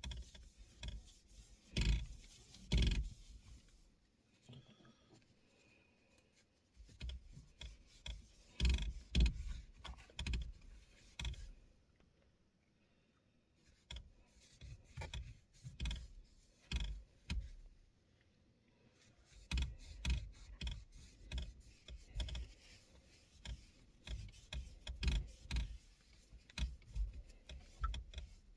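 Leather steering wheel being scrubbed clean by hand with alcohol cleaner: bursts of irregular rubbing strokes and light taps, separated by short pauses.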